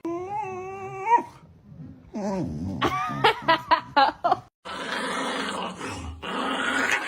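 A dog vocalising: a held, wavering whine for about a second, then a quick run of short yips and cries, then a few seconds of rough, noisy sound.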